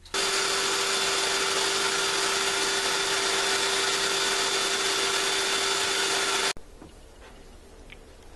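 A small electric motor runs steadily with a loud rush of air for about six seconds, switched on and off abruptly, clearing dust from a TV circuit board.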